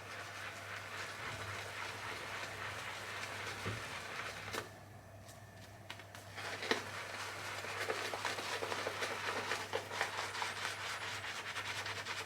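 RazoRock Hulk shaving brush, way overloaded with Lather Bros shaving soap, working up a still fairly dry lather with no water added yet. A steady swishing gives way, after a short lull about halfway through, to quick rhythmic strokes.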